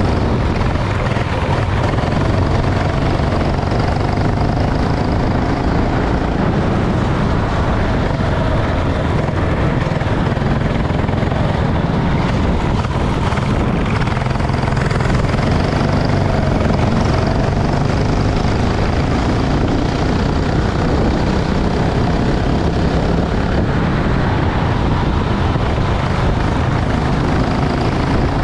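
Racing kart engine running at race pace, its pitch rising and falling under a dense, steady low rumble.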